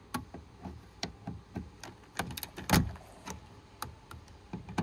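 Screwdriver turning a Phillips screw out of the plastic pocket behind a truck's interior door handle: a string of irregular clicks and knocks, the loudest a little under three seconds in.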